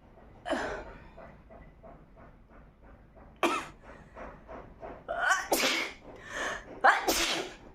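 A woman sneezing several times in a row: one sharp sneeze about half a second in, another a few seconds later, then a quick cluster near the end. The sneezes are brought on by tickling inside her nose with a cotton swab.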